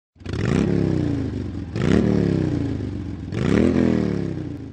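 Motorcycle engine revved three times in a row, each rev rising quickly in pitch and then falling back.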